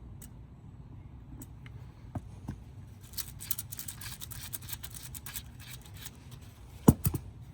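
Hand work on differential parts: scattered light clicks, then a stretch of quick small clicks and rustling, then two sharp metallic knocks close together near the end, over a low steady hum.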